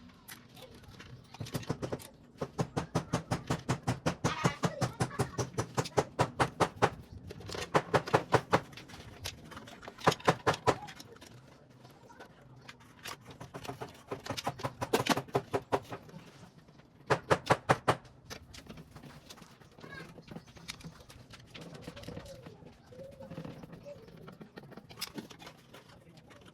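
Runs of rapid sharp clicks, about six to eight a second, in bursts of one to several seconds, then quieter after about 18 s.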